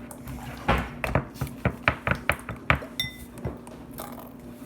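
A rapid run of clinks and taps from bowls and utensils being handled and knocked together, then one clear ringing ping about three seconds in.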